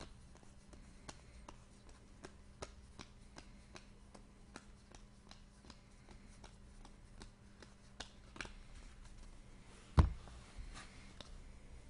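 Trading cards being handled and flipped through, a string of light clicks and rustles. One sharp knock on the table about ten seconds in is the loudest sound.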